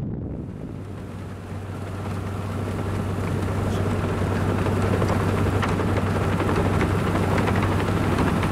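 Locomotive with a snow plow ploughing through deep snow on the track: a steady low engine hum under a rushing hiss of thrown snow, which grows louder over the first few seconds, with scattered sharp ticks.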